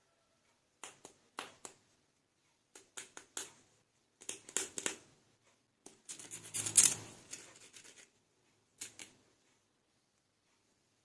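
Small plastic toy figures being handled: irregular clicks, scrapes and rustles in short clusters, the longest and loudest about seven seconds in.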